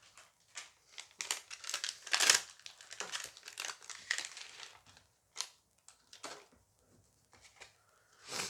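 Plastic-foil booster pack being torn open and crinkled in the hands: a dense run of crinkling and tearing in the first half, loudest a little past two seconds in, then a few separate rustles.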